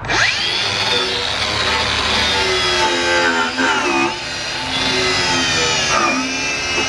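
Power tool spinning a wire brush to clean out a wood chipper's knife mount: the motor whines up to speed at the start, then runs at a high steady pitch that dips briefly twice, about four and six seconds in, as it takes load.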